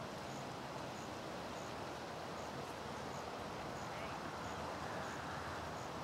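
Steady wind and outdoor background noise, with a faint, short high chirp repeating about every two-thirds of a second.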